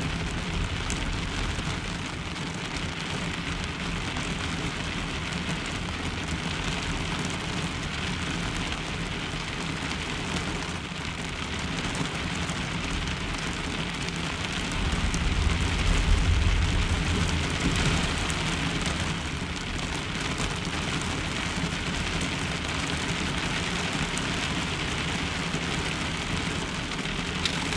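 Heavy rain falling on a pickup truck's camper shell, heard from inside it. A low rumble of thunder swells and fades about halfway through.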